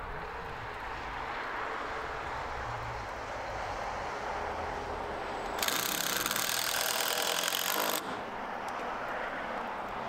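Milwaukee cordless drill driver running for a couple of seconds, starting a little past the middle and stopping abruptly, as a screw is driven into the wooden framing. A steady low rumble underneath.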